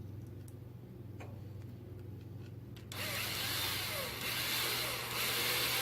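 A small power driver runs for about three seconds, starting about halfway through, as M4 button-head screws are driven in. Before it, only faint ticks over a low hum.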